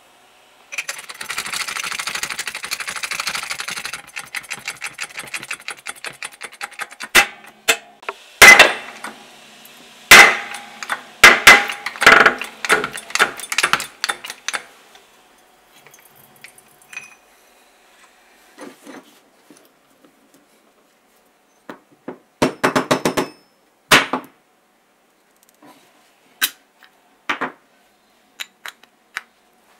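Metal-on-metal knocks and clicks as a steel punch in a press drives the shaft and bearing out of an aluminium gear housing. A rapid rattling comes first, then a run of loud sharp knocks about a third of the way in, then scattered clicks and a short cluster of knocks.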